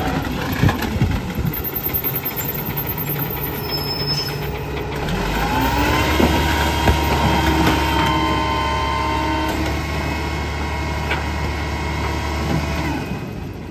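Mack rear-loader garbage truck's diesel engine running as the truck rolls and stops. About five seconds in it speeds up and holds a steady high idle with a whine to drive the hydraulic packer, until shortly before the end. A couple of sharp knocks come as a trash cart is tipped into the hopper.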